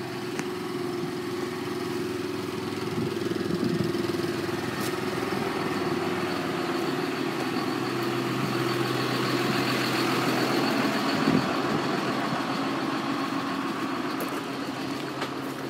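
A motor vehicle's engine running steadily with a low hum. It grows gradually louder toward the middle and eases off near the end.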